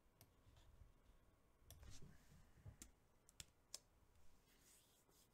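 Near silence: room tone with about half a dozen faint clicks from working a computer, scattered through the middle.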